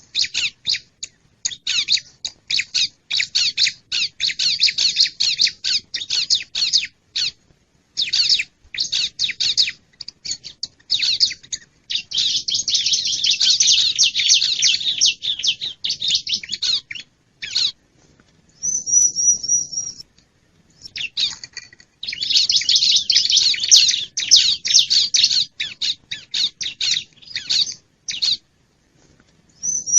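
Bar-winged prinia (ciblek) calls, played as a lure recording: quick runs of sharp, high chirps broken by short gaps. Two long stretches of dense chattering stand out, and a short, even, high trill comes about two-thirds of the way through and again at the end.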